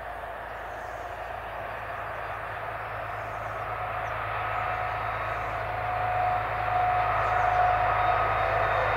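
DB Class 218 diesel-hydraulic locomotive hauling a passenger train as it approaches, its diesel engine growing steadily louder. A steady whine comes in over the last few seconds.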